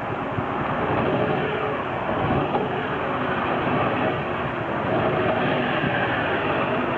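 Small water-jet boat's 10 hp air-cooled engine running steadily under way.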